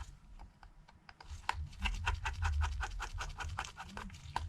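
Precision pentalobe screwdriver unscrewing the bottom pentalobe screws of an iPhone XS: a quick, even run of small clicks, about six or seven a second, starting about a second and a half in.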